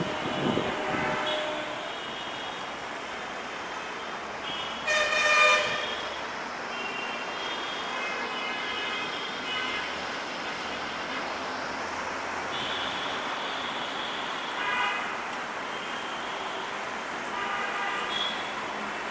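Vehicle horns honking on and off at several different pitches over a steady hum of traffic, the loudest honk about five seconds in.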